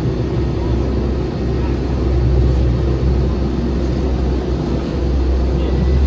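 Motorboat engine running steadily under way over choppy river water, a loud continuous low rumble with the rush of water and air over it.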